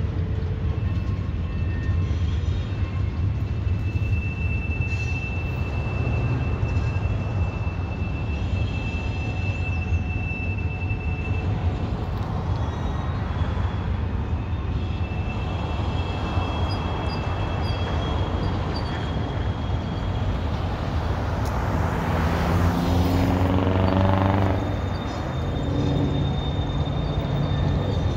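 Intermodal freight train with auto racks rolling past: a steady low rumble of wheels on rail, with thin high squeals coming and going. About 22 seconds in, a louder passing sound drops sharply in pitch.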